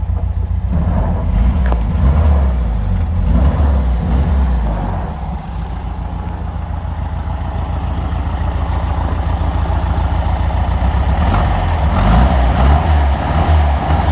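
1971 VW Beetle's air-cooled flat-four engine running with a rough, uneven beat, revving up briefly twice. It is misfiring on one cylinder, running on three, which the owner cannot yet explain.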